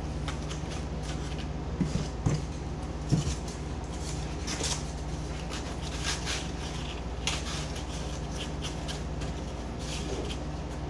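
Steady hum of a room air conditioner, with short scraping sounds now and then and a couple of light knocks as foam pieces are cut and handled.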